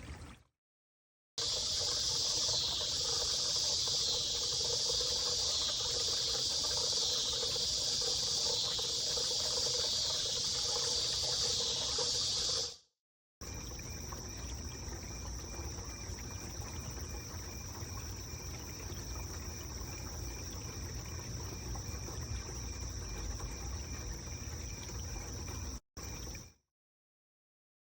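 Cascading water fountain trickling, with a loud steady insect chorus over it for the first half, pulsing evenly. After a brief cut, the trickle goes on under a single steady high-pitched tone, and the sound stops short near the end.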